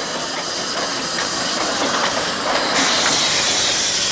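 Px38 narrow-gauge steam locomotive moving slowly, with a steady hiss of escaping steam from its cylinder drain cocks. The hiss gets louder and brighter a little under three seconds in.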